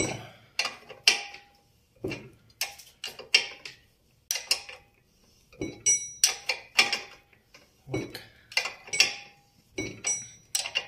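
Wrench working the screw of a bushing extractor to draw a worn swingarm bushing out of a motorcycle swingarm: sharp metal clicks and clacks in quick bunches about every half second, with short pauses and a few brief metallic rings.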